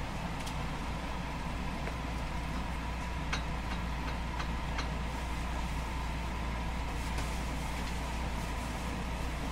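JR West 221 series electric train standing at the platform before departure, its onboard equipment giving a steady low hum with a faint steady tone above it. A few faint clicks come about three to five seconds in.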